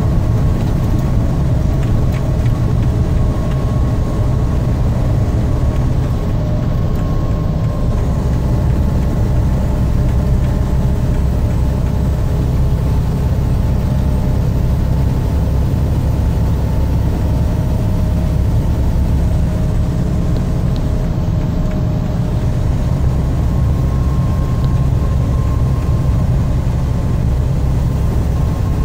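Steady low engine and road rumble of a moving vehicle, heard from inside its cab, with a faint steady hum above it.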